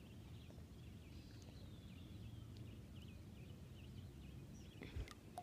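Quiet outdoor ambience with faint, scattered bird chirps and a low steady background hum, broken by a single soft knock near the end.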